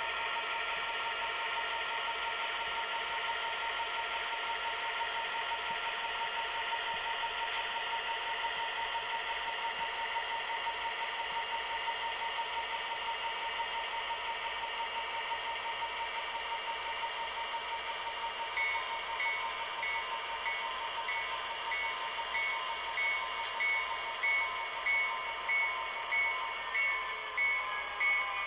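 A SoundTraxx Tsunami sound decoder in an HO-scale Union Pacific SD70M model plays its diesel engine sound steadily through the locomotive's small speaker. About two-thirds of the way in, the locomotive bell starts ringing about once a second, and near the end the engine pitch falls.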